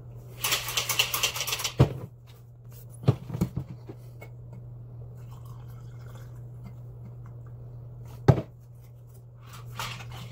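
Plastic shaker bottle shaken hard for about a second and a half, then a few clicks as its lid is opened. The drink pours quietly into a glass, a sharp click follows, and the bottle starts being shaken again near the end.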